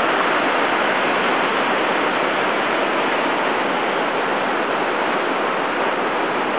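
Steady rush of whitewater pouring over a steep, rocky creek drop.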